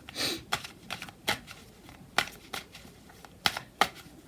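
Tarot cards being handled on a table: a short brushing slide, then a string of sharp, irregular clicks and taps as the cards are shuffled and laid down.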